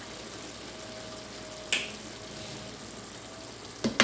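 Pot of just-cooked spinach and rice still hissing softly after the heat is turned off, as a plastic spatula stirs through it. A sharp tap comes a little under two seconds in, and the spatula knocks twice against the pot near the end.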